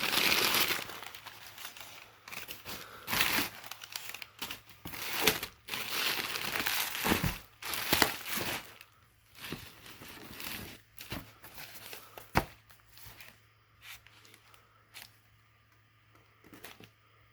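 Packaging being opened and handled: crinkling and tearing in irregular bursts, with sharp clicks and knocks as items are moved, busy for the first half and sparser after.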